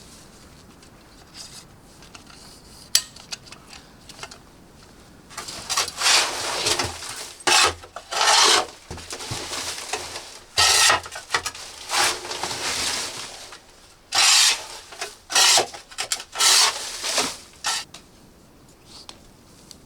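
A series of rough scraping or rubbing strokes of uneven length, starting about five seconds in and stopping near the end.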